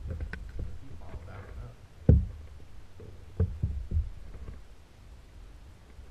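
Dull knocks on a kayak as a just-caught crappie is swung aboard and unhooked. One loud thump comes about two seconds in, then three more in quick succession about a second later.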